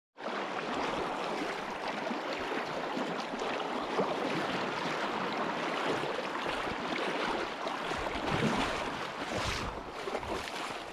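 Steady rush of fast, shallow river water running over a gravel riffle, close to the microphone, with a little wind buffeting the microphone near the end.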